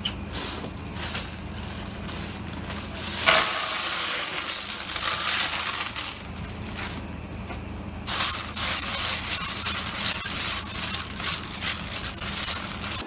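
Empty brass cartridge cases clinking and rattling against each other on a wooden tabletop: a dense spill of clinks as they are poured out of a plastic bag, then a lighter, continuous rattle as hands push them around to spread them.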